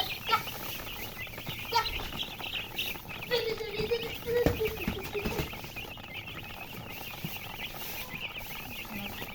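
A brood of chicks peeping continuously, many short high chirps overlapping, with a lower drawn-out fowl call partway through and a sharp click about halfway.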